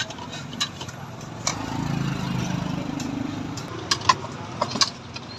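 Scattered clinks and taps of bowls and utensils being handled at a noodle stall, over a low engine hum that swells in the middle and fades again.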